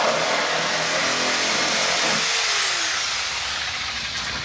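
Corded Sawzall reciprocating saw cutting the top lip off a sewage ejector pit, flush with the concrete floor. About two and a half seconds in the trigger is let go and the motor winds down with a falling whine.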